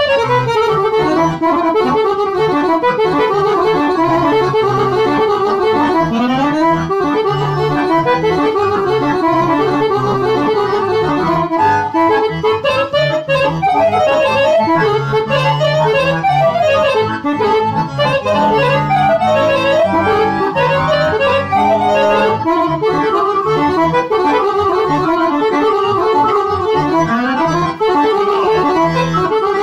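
Two accordions playing a fast, winding melody together over steady bass notes, one of them fitted with a digital sound module.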